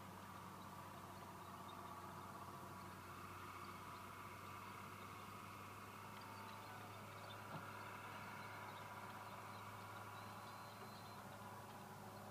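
Faint outdoor ambience: a steady low hum under a soft hiss, with one small click about seven and a half seconds in.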